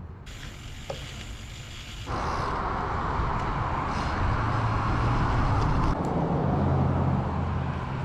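Steady outdoor road noise: a rushing hiss over a low engine-like hum, which jumps abruptly louder about two seconds in.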